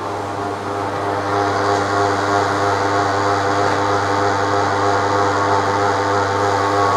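Steady mechanical drone of an indoor ski hall's machinery: a constant low hum with several steady tones above it, getting a little louder about a second in.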